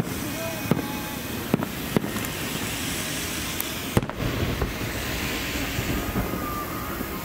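Aerial firework shells bursting: a sharp bang at the start, several more over the next two seconds, and a big bang about four seconds in, followed by a crackling hiss for about two seconds as the stars fall.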